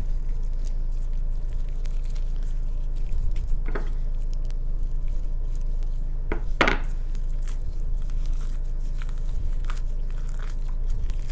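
Raw chicken breast meat being pulled and cut away from the carcass: soft, wet tearing and crackling sounds, with two louder rasps, a little before and a little after the middle. A steady low electrical hum runs underneath.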